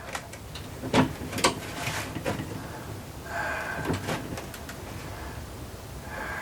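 A few sharp clicks and knocks, the loudest about a second in and another half a second later, from the rifle and its rest being handled while the setup is adjusted.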